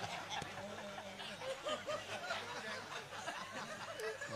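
Several people laughing and chuckling softly.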